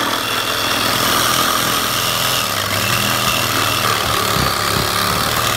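Ryobi 18-volt cordless reciprocating saw running steadily as it cuts a small block of wood with a wood-cutting blade.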